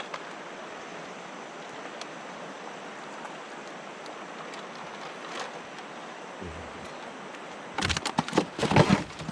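Steady rushing of a fast-flowing river, with a burst of loud knocks and clatter near the end.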